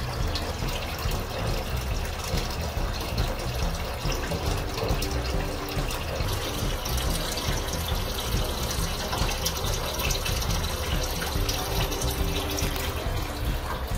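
Turtle tank's water filter running: a steady rush and splash of moving water.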